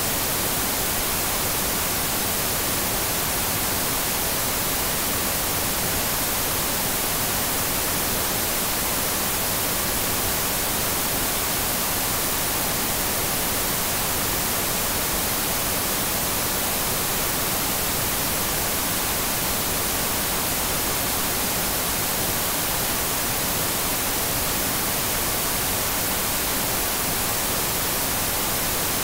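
Analog TV static: a steady, even hiss of white noise, brightest in the high end, with no breaks or changes.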